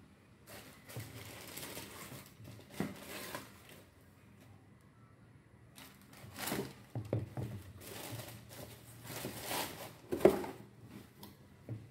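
Brown packing paper in a cardboard shoebox crinkling and rustling as a pair of hiking shoes is handled, in two spells. A sharp knock near the end is the loudest sound.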